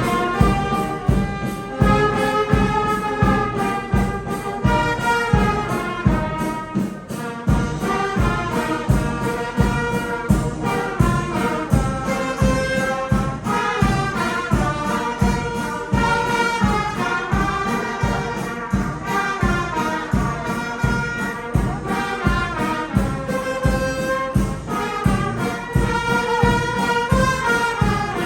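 A parish brass band, with trumpets and trombones, playing a melody in full harmony over a steady drum beat.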